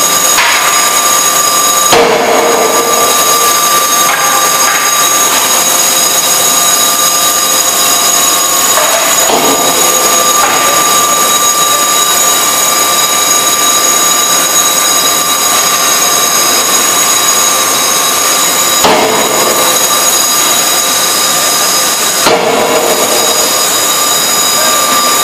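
Die forging hammer striking hot steel: a sharp blow about two seconds in and two more close together near the end, over a loud, steady machinery drone with high whining tones.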